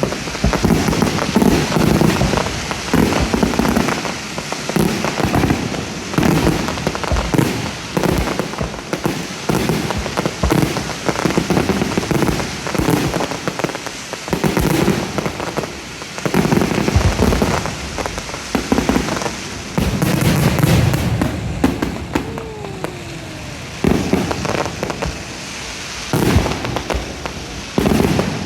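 Aerial fireworks display: a continuous barrage of shell bursts booming one after another, with crackling between them, coming in waves of heavier volleys.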